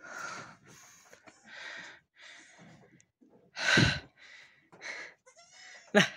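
Goats close by making a string of short breathy puffs, the loudest about four seconds in and a sharp one near the end, with two brief bleat-like calls in between.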